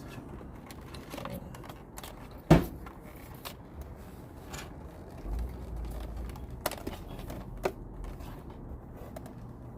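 Hands working on motorcycle headlight wiring and small parts: light clicks and rustling, with one sharper knock about two and a half seconds in.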